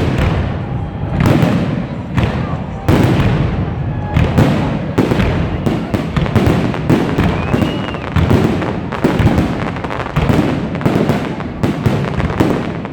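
Fireworks display: aerial shells bursting in quick, overlapping succession, deep booms mixed with sharp cracks and crackle, with no let-up.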